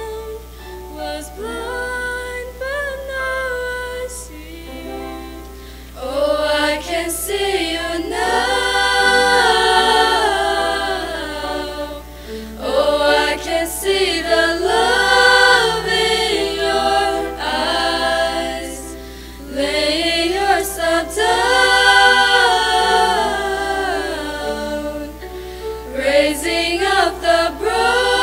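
Small choir of young women singing a sacred song in long held phrases, soft for the first few seconds, then fuller and louder.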